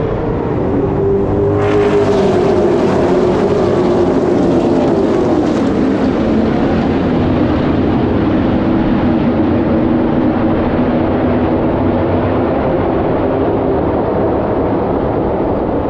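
A pack of NASCAR México Series stock cars running flat out past the fence, a loud chorus of V8 engines. Their pitch drops as the pack goes by a few seconds in, then carries on as a steady engine drone.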